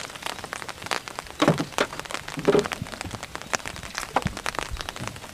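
Water splashing and dripping as a person wades waist-deep beside a plastic boat: an irregular patter of drops and small splashes, with a couple of louder sloshes about a second and a half and two and a half seconds in.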